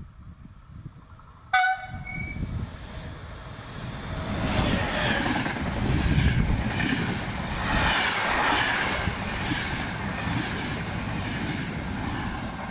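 A train horn gives a short loud blast about a second and a half in. Then a non-stopping Intercity Notte train of coaches rushes past at speed, its wheels clattering over the rail joints in a steady rhythm.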